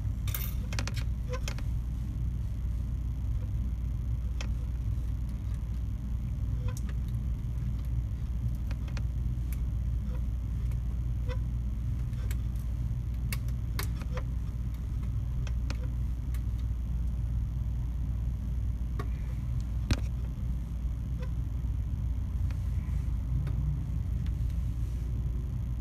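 Small scattered clicks and taps of hands working on an opened Samsung Galaxy S4 as its charging-port flex board is swapped, over a steady low rumble.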